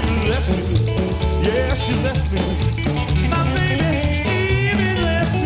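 Live rockabilly trio playing: an upright double bass pulsing under a hollow-body electric guitar and a small drum kit, with a male voice singing.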